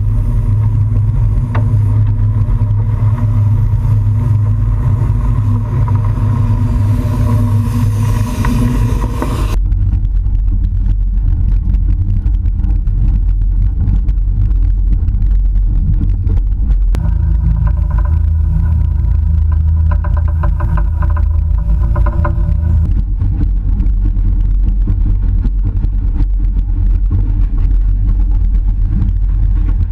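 Small steam locomotive running, a loud, steady low rumble with a held hum over it; the sound changes abruptly about ten seconds in.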